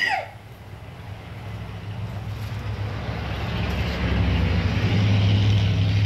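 A short cough at the very start, then a low engine rumble with a steady hum that grows steadily louder over several seconds, as of an approaching motor vehicle.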